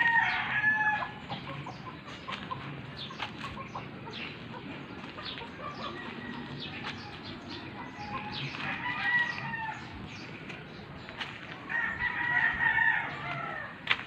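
Roosters crowing from the neighbourhood: three long crows, one near the start, one about nine seconds in and one about twelve seconds in.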